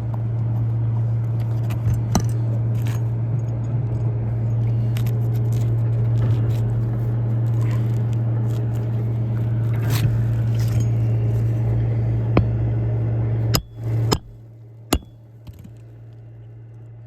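A steady low motor hum, like an engine running, under scattered clicks and scrapes from hand tools working roof shingles. The hum cuts off about thirteen and a half seconds in, leaving a few sharp clicks.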